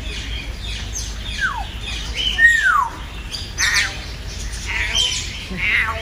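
African grey parrot whistling: two falling whistles, the second longer, followed by a few short harsh squawks.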